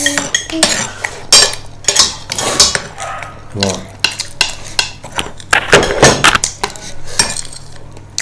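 Cutlery clinking and scraping against dishes: a busy run of short, sharp clicks and scrapes.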